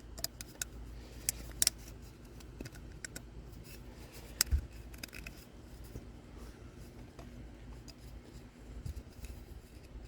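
Scattered light clicks and handling noises from hands working rubber O-rings onto a plastic oil filter cap, the clearest a couple of clicks about a second and a half in and one about four and a half seconds in.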